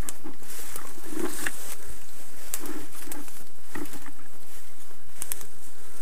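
Footsteps rustling and crackling through forest undergrowth, irregular steps on leaves, grass and twigs over a steady background hiss.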